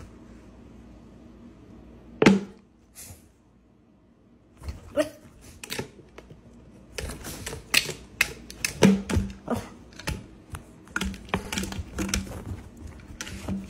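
A plastic water bottle clicking and crinkling while a pug paws at it: one sharp knock about two seconds in, then a run of quick, irregular taps and clicks.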